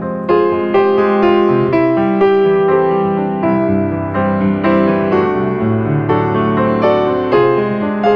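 Background piano music: a gentle, steady run of single notes, each struck and then fading.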